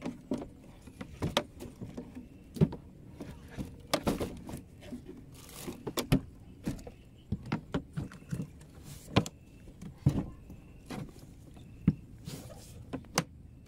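Irregular clicks, knocks and rustling of hands at work in a small boat: a plastic bag and a plastic cooler box being handled as the catch is stowed.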